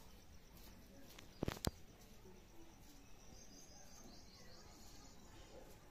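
Quiet background with two sharp clicks a fraction of a second apart about a second and a half in, and faint high-pitched chirping in the second half.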